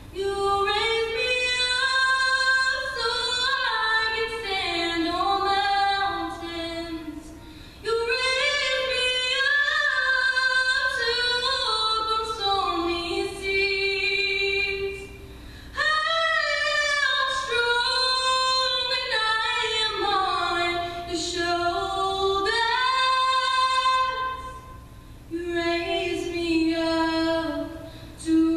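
A solo female voice singing unaccompanied, a cappella, in long melodic phrases with short pauses for breath between them.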